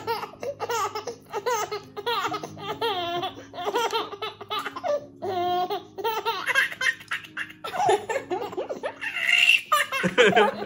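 Baby laughing in a long run of short belly-laugh bursts, about two a second, over background music.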